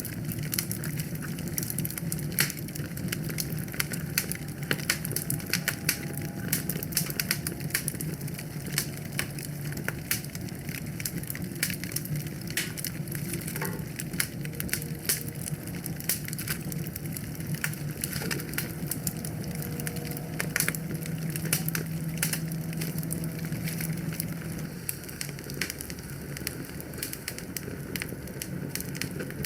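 Wood fire burning in a fireplace, crackling with dense irregular pops and snaps over a steady low rumble.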